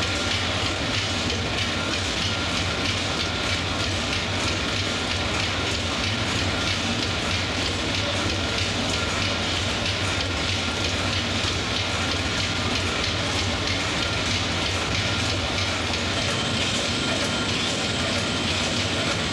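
Ship's engine-room machinery running: a loud, steady low hum under a dense, fast clatter that does not let up.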